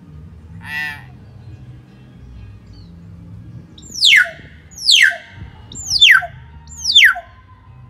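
Young hill myna calling: four loud whistles about a second apart, each falling steeply from high to low and ending in a short low note, after a shorter buzzy call about a second in.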